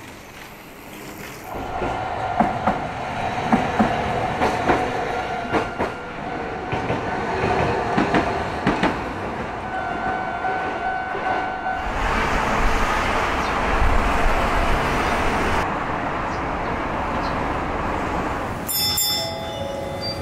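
Tokyo Sakura Tram (Toden Arakawa Line) streetcar running on its rails: a steady rumble with clicks over the rail joints and a steady whine. It gets louder about a second and a half in, and there is a brief high-pitched tone near the end.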